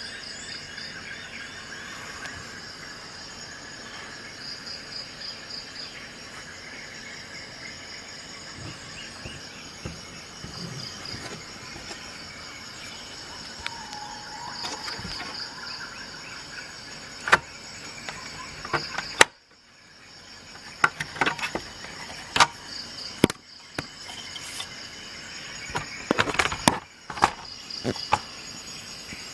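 Insects chirping in short repeated trills over a steady background. In the second half, a series of sharp clicks and knocks.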